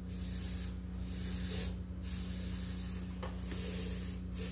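Aerosol can of starting fluid hissing as it is sprayed into a small Briggs & Stratton engine's intake, in three sprays with short breaks between them.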